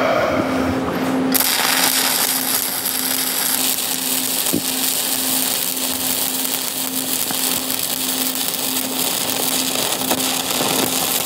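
7018 stick (SMAW) electrode arc welding a vertical-up fill pass: a steady crackling arc, struck about a second in and running on, with a low hum underneath.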